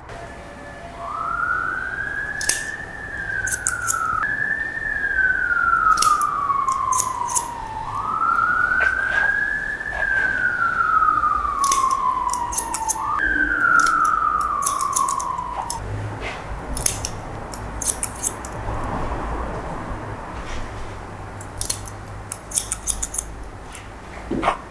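An emergency-vehicle siren wailing, its pitch sliding slowly up and down, then stopping about sixteen seconds in. Crisp snips of barber's scissors cutting hair run through it.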